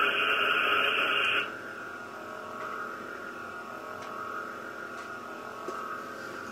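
Custom lightsaber's Ultrasound 2.1 sound board playing through its in-hilt speaker: a loud, noisy saber effect burst of about a second and a half as the hilt is moved onto its stand, then the steady idle hum of the lit blade.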